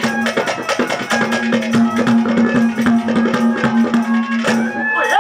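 Instrumental interlude of live Haryanvi ragni folk music: drums play a fast, busy rhythm over a steady held low note and a higher melody line, with no singing.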